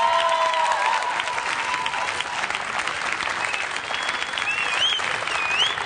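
Studio audience clapping steadily in dense applause. A high tone wavers up and down over it near the end.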